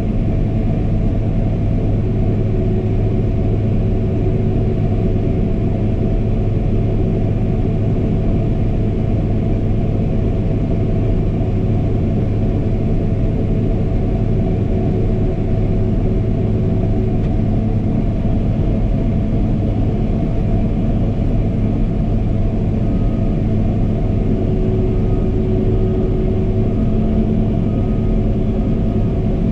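New Holland CX5090 combine harvester running steadily at working speed while it unloads shelled corn into a trailer: an even, unbroken machine drone with a strong low hum.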